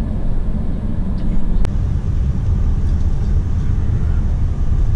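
Steady low rumble of a coach's engine and tyres on the road, heard from inside the cabin, with a single sharp click about one and a half seconds in.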